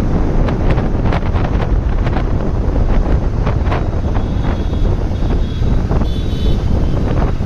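Heavy wind rush on the microphone of a moving motorcycle, with engine and road noise underneath and frequent short knocks.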